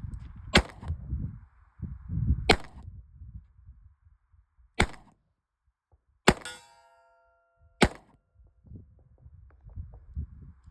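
Five shots fired from a Rock Island M206 .38 Special revolver, spaced about a second and a half apart. After the fourth shot a metallic ringing hangs on for about a second.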